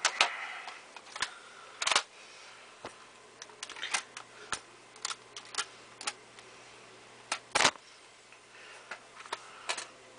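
Irregular sharp clicks and taps, with a little rustling near the start, from objects being handled while a box is unpacked. The loudest knocks come about two seconds in and again past seven seconds.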